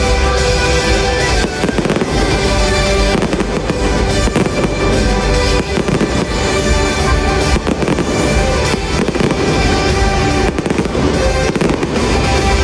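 Fireworks show going off, many bangs close together, over loud music with held tones.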